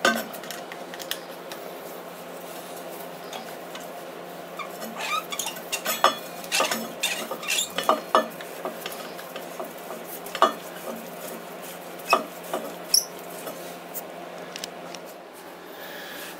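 Metal tools clicking and clinking against a scooter's front brake caliper while the brake-pad retaining pins are unscrewed. The clicks come at irregular intervals, over a faint steady hum.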